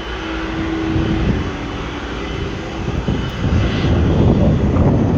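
Airliner engine rumble from a plane on or near the runway, with a steady hum in the first few seconds, growing louder about three and a half seconds in.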